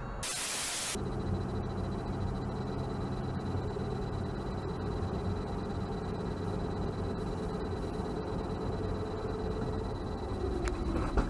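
Steady road and wind noise inside a car driving on a highway, picked up by a dashcam, with a low engine hum under it. A short hiss of static, about a second long, comes just after the start, and a sharp knock near the end.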